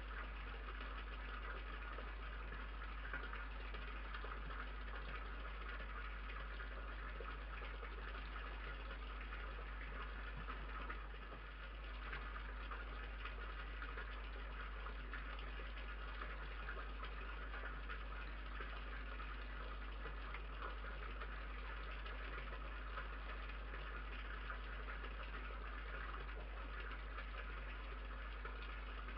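Steady low electrical hum with an even hiss over it, the self-noise of a security camera's built-in microphone; it dips briefly about eleven seconds in.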